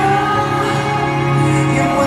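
Live K-pop music from the concert stage over the arena sound system, with held sung notes.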